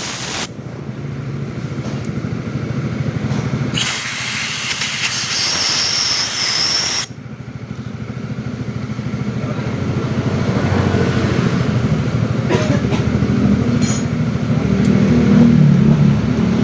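Aerosol cleaner sprayed in a hissing burst of about three seconds, starting about four seconds in, after a short burst at the very start. An engine idles steadily underneath, a little louder near the end.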